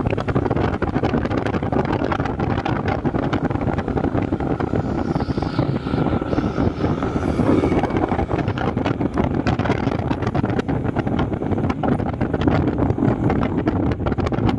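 Wind buffeting the microphone of a moving motorcycle, with the motorcycle's engine running steadily underneath.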